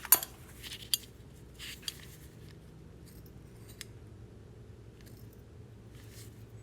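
Small metal hand tools being handled: a sharp metallic click just after the start, then a few lighter clicks and short rustles over the next few seconds, fading to faint handling noise.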